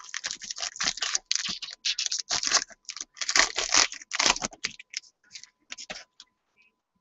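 Foil wrapper of a trading-card pack crinkling and tearing as it is ripped open by hand: a fast run of crackles that thins out about five seconds in and stops about six seconds in.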